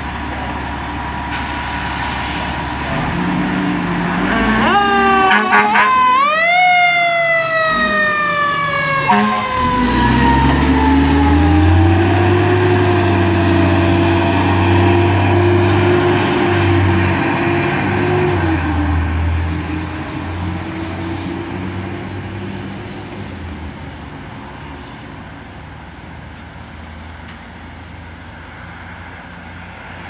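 Fire department ladder truck setting off on an emergency run. Its siren sweeps up in pitch and then slowly falls away over the engine's heavy running, and the truck fades into the distance over the last third.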